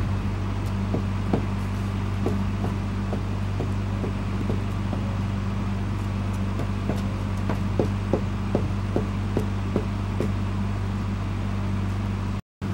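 Light, irregular knocks and taps of wooden wall framing being shifted and tapped into place, over a steady low mechanical hum. The audio cuts out briefly near the end.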